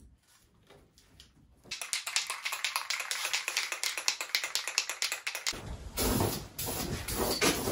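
Aerosol spray-paint can being shaken hard, its mixing ball rattling in quick sharp clicks that start about two seconds in and keep going.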